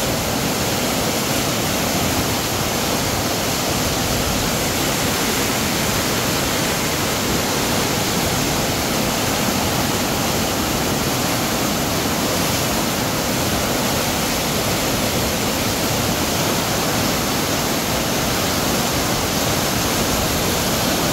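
Rushing water of a river swollen by heavy rain, a loud, steady, unbroken rush.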